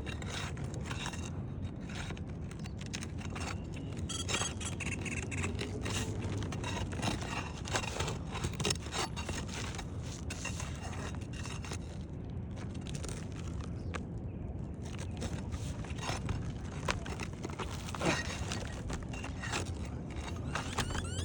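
Irregular scraping and clicking of a metal tool prying up an asphalt roof shingle and pulling its staples, over a steady low rumble.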